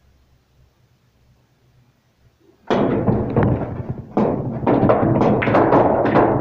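Pool cue striking the cue ball about two and a half seconds in, followed by a quick string of sharp clacks as the balls collide, bounce off the cushions and drop into the pockets of a 6 ft pool table.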